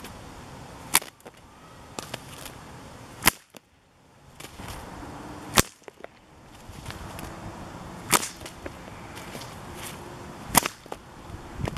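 A 2.3-metre brown leather cattle whip cracking five times, about every two and a half seconds: each a sharp crack, with fainter clicks in between.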